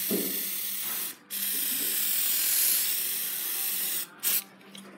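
Paint being sprayed onto a metal fender: a steady hiss that breaks off for a moment about a second in, resumes until about four seconds in, then one short final burst. A faint steady hum runs underneath.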